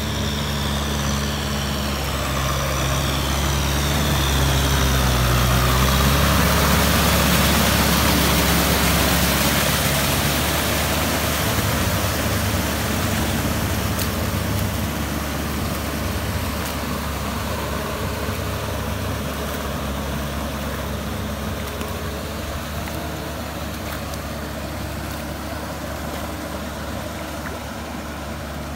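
Kubota tractor's diesel engine running steadily as it works the flooded rice field, growing louder over the first several seconds and then slowly fading as it moves away.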